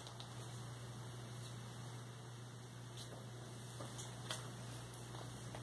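Steady low electrical hum with faint room noise, and a few soft ticks of playing cards being handled on a playmat between about three and four and a half seconds in.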